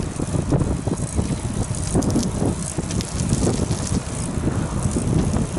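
Wind buffeting the microphone of a camera riding on a moving bicycle, over a steady low rumble from tyres and road, with light rattles.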